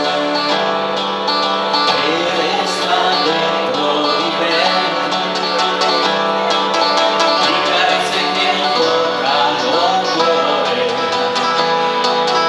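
Italian pop song performed live, with guitar-led accompaniment. A male lead voice comes in singing about two seconds in.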